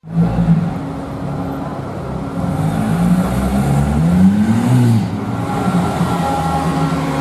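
Tuned KTM X-Bow's engine running as the car rolls slowly past, with one rev that rises and falls back about four to five seconds in.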